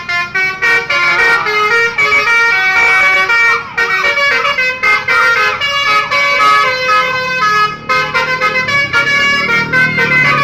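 Bus telolet horn, a Basuri V3, playing a fast tune of short stepped notes, several tones sounding together, without a break.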